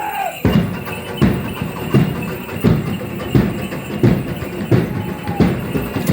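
Drumming for a traditional danza: a steady beat of strong strokes about every 0.7 seconds with lighter strokes between, starting suddenly about half a second in.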